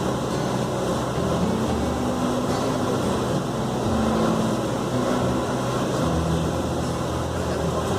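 Cessna 172 Skyhawk's piston engine and propeller droning steadily in cruise flight, with rushing airflow noise, heard inside the cabin.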